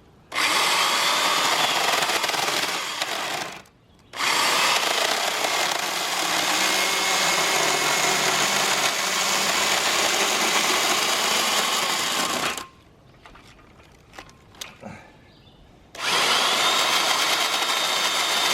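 Vintage Milwaukee 6210 electric chainsaw running in three spells, starting and stopping, with a drill-like motor sound as it cuts into wood; a few light knocks fall in the longer pause.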